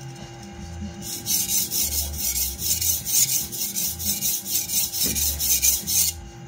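Cleaver blade scraped back and forth across a 400-grit whetstone in quick, evenly spaced strokes, a rhythmic gritty grinding that starts about a second in and stops shortly before the end: extra passes at the tip to raise a burr there.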